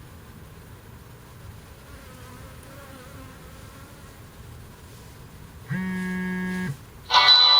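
Honeybees buzzing, a faint steady humming with a slightly wavering pitch. Near the end a loud held low note sounds for about a second, and then music begins.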